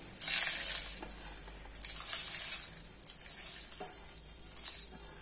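Roasted whole spices and dals for sambar masala swept by hand off a steel plate into a steel mixer jar, pouring and scraping in a few bursts, the loudest about half a second in and again about two seconds in.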